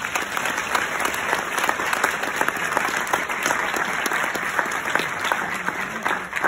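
Audience applauding: a dense, steady run of many hands clapping in a hall.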